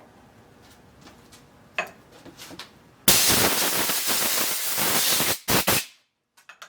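A few faint ticks, then about three seconds in a sudden loud hiss that runs for a couple of seconds, followed by two short bursts of the same hiss.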